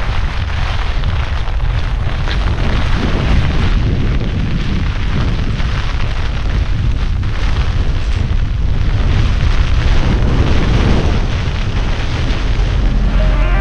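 Strong gusting wind of about 40 to 50 miles an hour blasting the microphone in a deep, continuous rumble, over a steady hiss of wind-driven rain.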